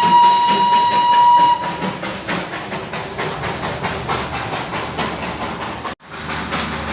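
Darjeeling Himalayan Railway toy train: a steady, high whistle blast that stops about one and a half seconds in, then the train running with a rhythmic clatter of wheels and wagons. The sound drops out abruptly for a moment near the end.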